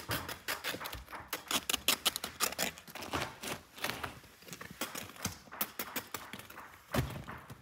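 Crusty tandoor-baked Uzbek flatbreads clicking and tapping against each other and the table as they are handled and stacked: quick, irregular light knocks, with a duller thump of a loaf set down about seven seconds in.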